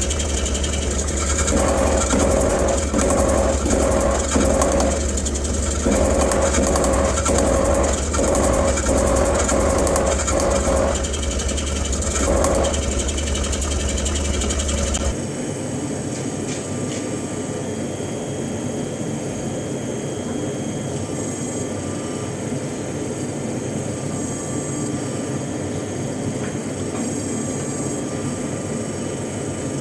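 Power hammer running, its motor humming steadily while it strikes hot steel in quick runs of blows for the first half. About halfway through, the hum and blows cut off abruptly, leaving a quieter steady whir.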